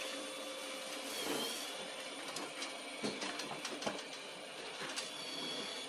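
Roborock S7 MaxV Ultra robot vacuum returning to its dock: a steady mechanical whir from its motors, with a run of light clicks about three to four seconds in as it turns and backs onto the dock.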